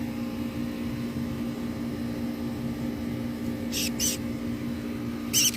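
Steady low machine hum, with short high-pitched squeaks from a small yellow bird, twice in quick pairs, the louder pair near the end as it is caught by hand.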